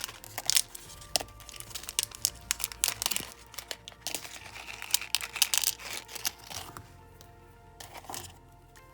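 Thin plastic packaging crinkling and rustling as a small bag of nail charms is handled and opened, in a dense run of sharp crackles that dies down about two-thirds of the way through. Soft background music plays underneath.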